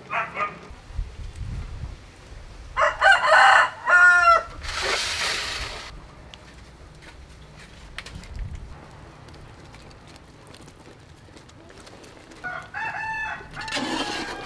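A rooster crowing, the loudest sound, about three seconds in, followed straight after by about a second of rushing noise. A second, quieter crow comes near the end.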